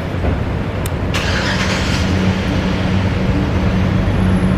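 Car engine running with a steady low hum, and a brief hiss about a second in.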